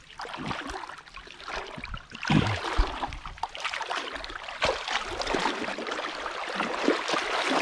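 Water sloshing and splashing as a person wades through shallow water with a cast net trailing in it, with heavier splashes of steps from about two seconds in.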